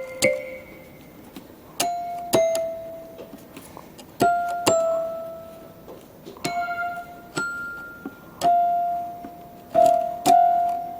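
Casio LK-280 electronic keyboard playing single notes one at a time, slowly and unevenly, each with a sharp attack and a tone that dies away.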